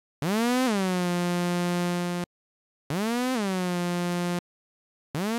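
Zebra2 software synthesizer playing three bright, buzzy held notes. Each swoops up in pitch and slides back down to a steady pitch within about half a second, the sweep coming from its multi-stage envelope generator modulating the oscillator's tune. Each note cuts off abruptly on release, and the last is short.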